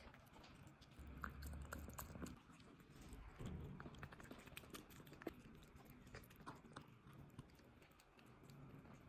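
A kitten chewing and licking food from a plate: faint, irregular wet clicks and smacks.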